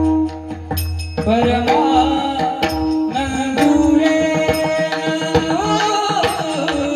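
Marathi devotional bhajan: a singer holds long gliding notes without words over tabla and percussion accompaniment.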